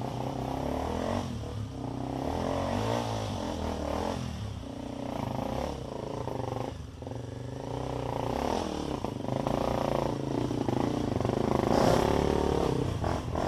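Trail motorcycle engine running, its pitch rising and falling with the throttle.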